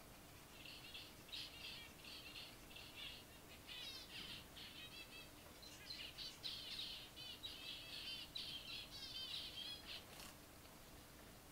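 A group of zebra finches calling: dense runs of short, high chirps and repeated notes, busiest in the second half.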